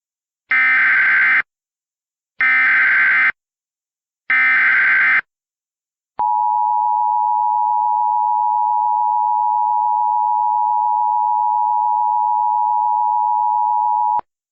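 Emergency Alert System tones: three short buzzy bursts of SAME header data, about a second apart, then the steady attention signal tone held for about eight seconds, with a click as it starts and stops.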